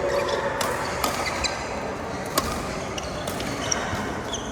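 Badminton rally: several sharp racket strikes on the shuttlecock, with short squeaks of shoes on the court floor between them.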